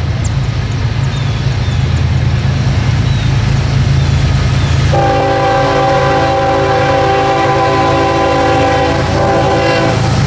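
Norfolk Southern freight train's diesel locomotives approaching with a steady low rumble; about five seconds in, the lead locomotive sounds one long multi-note air horn chord, held about five seconds until just before the end.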